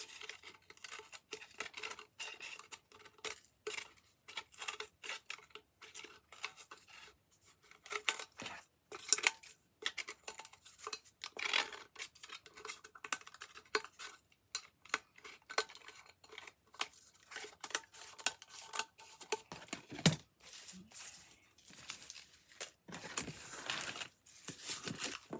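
Scissors cutting and handling stiff, thick textured craft paper: irregular short snips and paper rustles, with one sharper knock about twenty seconds in.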